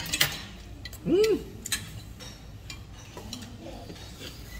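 A man chewing a mouthful of food, with a few small clicks and one short hummed 'mmm' of enjoyment about a second in that rises and falls in pitch.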